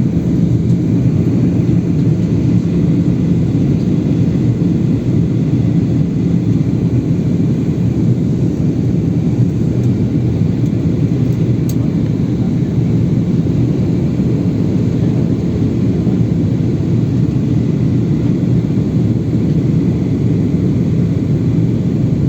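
Steady, loud drone of an airliner's engines and airflow heard inside the passenger cabin during the descent to land.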